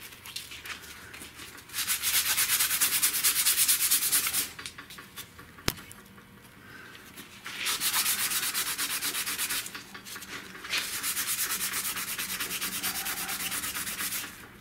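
Gloved fingertip rubbing quickly back and forth over a 1979 Buick Limited's cracked vinyl dash pad, working baking soda into super glue along the crack. It makes a scratchy, gritty hiss in three spells of a few seconds each.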